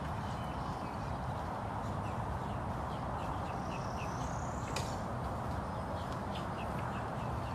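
Outdoor ambience: a steady rushing background noise, with small birds chirping in short, repeated notes throughout. About four seconds in there is a rising whistle, and it ends with a sharp click.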